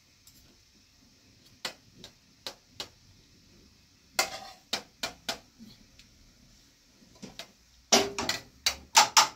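Metal spoons clinking and tapping against a pan and a metal serving tray: a scattered series of sharp clinks, louder and quicker near the end.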